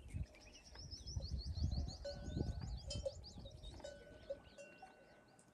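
Bells on browsing camels clinking now and then, while a bird chirps rapidly over the first three seconds or so. A low rumble underneath fades out near the end.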